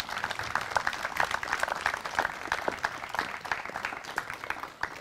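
Audience applauding at the end of a speech, the clapping thinning out near the end.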